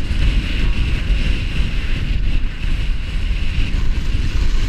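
Wind buffeting a chest-mounted GoPro's microphone during a fast downhill ski run, a heavy steady rumble, with a steady hiss of skis running over packed snow.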